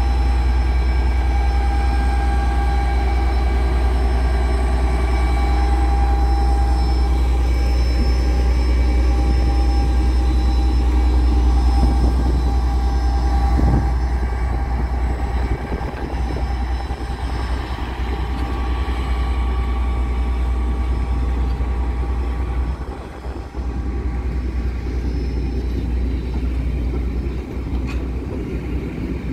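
Class 57 diesel-electric locomotive passing with its two-stroke EMD 645 diesel engine running and a steady whine. About halfway through there is a knock, and the engine sound gives way to its coaches rolling past over the track.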